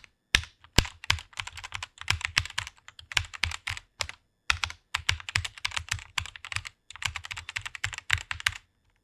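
Fast typing on a computer keyboard: rapid key clicks in quick runs, broken by short pauses.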